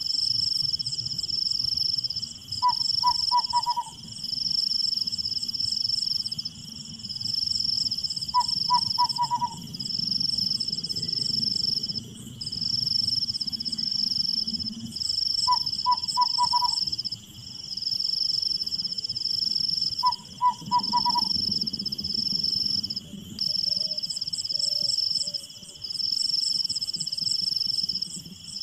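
Night ambience of insects trilling in long, high phrases broken by short gaps, over a steadier high hum. Every few seconds a short run of four or five quick call notes from an animal sounds, with a low rumble underneath.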